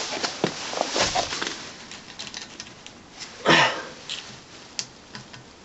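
Small metal clicks and scrapes of a thin screwdriver prodding the offset washer on a rear axle trailing arm, with one louder scrape about three and a half seconds in. The washer is not seating because its groove was not cleaned out properly.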